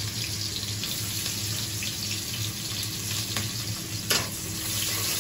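Onion and green chilli sizzling steadily in hot oil in a metal kadhai. About four seconds in, a spatula knocks once against the pan as they are stirred.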